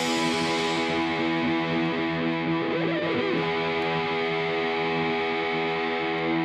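Background music: sustained distorted electric guitar chords in a quieter passage without drums.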